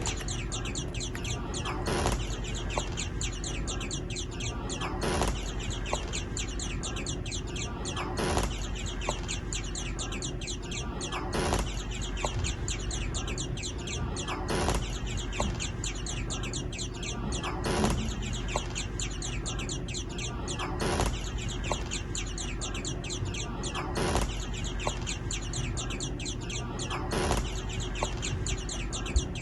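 Birds chirping and hens clucking, with wing flaps, on a looped track that repeats about every three seconds.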